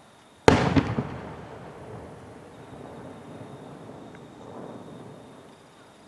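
A firework shell bursts overhead with one sharp bang about half a second in, followed by a few quick cracks and a long rolling echo that fades over the next several seconds.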